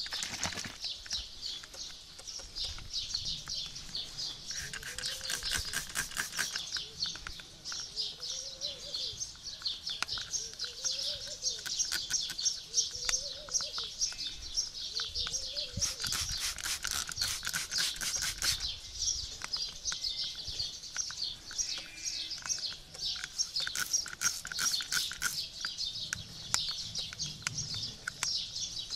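Many small birds chirping continuously in quick, high chirps. Through the first half a lower call rises and falls about every second and a half. A few short bursts of rapid clicking come near 5, 16 and 24 seconds.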